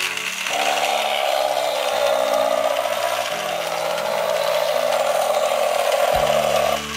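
Small motor and plastic gears of a battery-powered Pororo toy airplane running with a fast, even ratcheting buzz. It starts about half a second in and stops just before the end.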